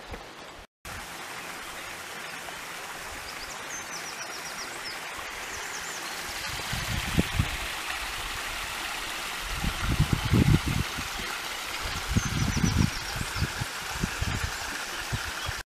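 Steady rush of running water, like a mountain stream, with a few irregular low thumps in the second half.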